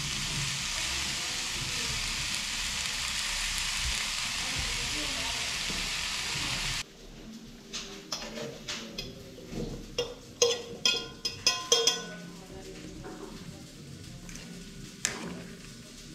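Goulash ingredients sizzling as they fry in a pan. The sizzle cuts off suddenly about seven seconds in, and a quick run of light knocks and clatters follows, with one more a few seconds later.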